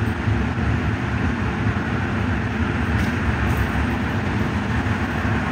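Steady low rumble of road and tyre noise with a motor hum inside the cabin of a self-driving electric minibus, moving at about 29 km/h through a tunnel.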